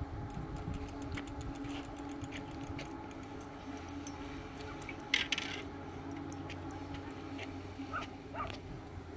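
A dog whining, with a short sharp yelp about five seconds in and two more brief whines near the end, over a steady low hum.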